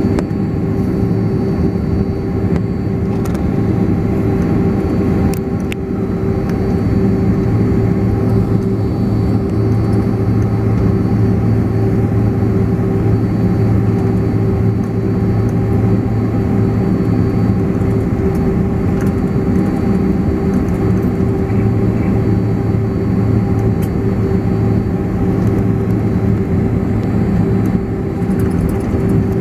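Boeing 767's jet engines running at taxi power, heard inside the cabin: a steady low hum with a held tone over it, unchanging throughout.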